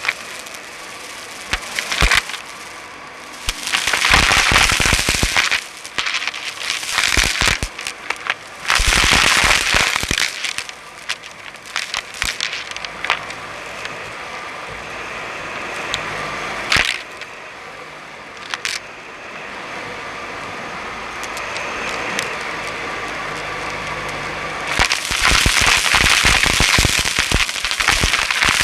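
Dyson Light Ball upright vacuum running and sucking up crunchy debris, which crackles and rattles through it in several loud bursts over the steady sound of the machine.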